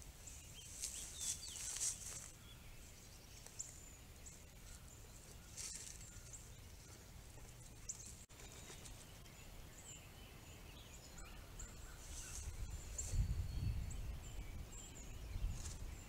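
Small songbirds chirping around backyard feeders: short high chirps scattered through a steady low rumble, which swells about thirteen seconds in.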